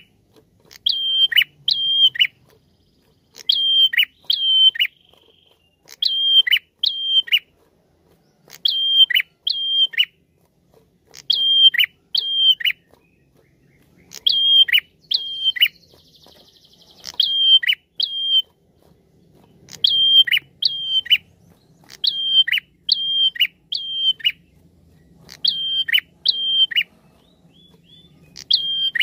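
Caged prenjak singing its lure call: short bursts of two or three loud, high whistled notes, each held briefly then dropping sharply, repeated about every two and a half seconds.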